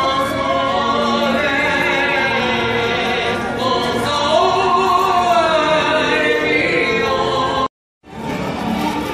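Operatic or choral singing: several voices holding long sustained notes that slide gently in pitch. The sound cuts out abruptly for a moment near the end.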